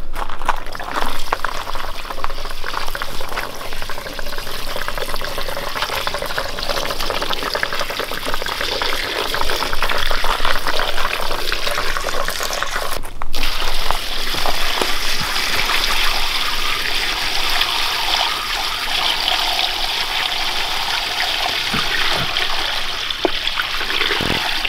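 Diesel fuel pouring in a steady splashing stream from a plastic fuel jug into a plastic tub over greasy drive chains and sprockets. The pour breaks off for a moment about halfway through.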